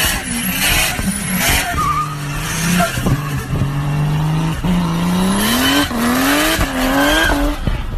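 Turbocharged Ford Barra 4.0-litre straight-six engine under load: it holds steady revs for a couple of seconds, then pulls hard with its pitch rising through three quick upshifts, each shift dropping the revs before they climb again.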